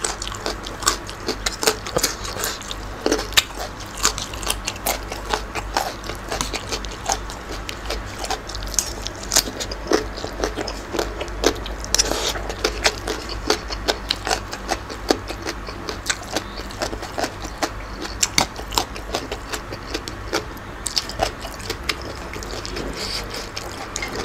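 Close-up chewing of crunchy green papaya salad and baby carrots: a steady run of crisp crunches and mouth clicks, several a second.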